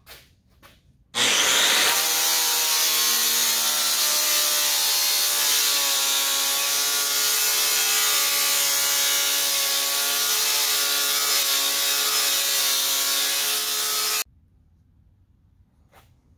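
Large angle grinder with a sanding disc grinding a steel plate down flush with the steel firebox: a loud, steady grinding with a motor whine over it. It starts about a second in and cuts off abruptly about two seconds before the end.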